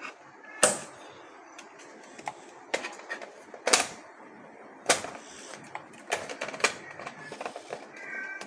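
Irregular sharp clicks and knocks of hard objects being handled, a few of them loud, with faint high tones near the end.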